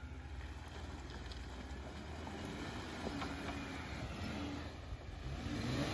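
Off-road vehicle's engine running low and steady as it crawls along the trail, with a few sharp clicks and knocks from the vehicle a few seconds in, growing louder near the end.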